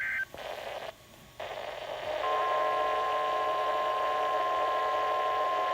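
NOAA Weather Radio receiver: a short burst of the warbling SAME data header at the very start, then radio hiss with a brief dropout. From about two seconds in, the steady single-pitch warning alarm tone that signals a warning-level alert is coming.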